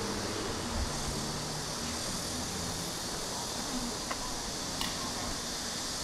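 Street ambience: a low rumble of distant traffic with an engine hum about a second in, under a steady high hiss, and two faint ticks a little past halfway.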